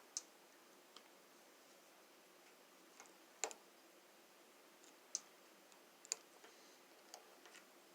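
Mostly quiet, with about seven faint, irregular clicks as solid 12-gauge copper wires are handled and twisted together; the loudest comes about three and a half seconds in.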